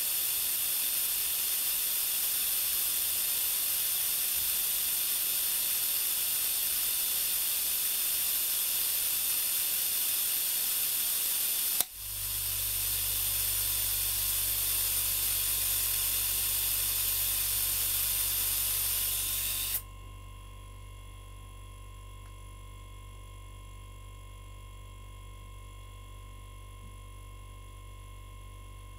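Compressed air hissing steadily out of the compressor tank. About twelve seconds in, the pressure switch clicks on and the converted refrigerator compressor, started through its PTC thermistor start circuit, begins running with a low hum. The hiss cuts off suddenly some eight seconds later, leaving the quiet, steady hum of the running refrigerator compressor.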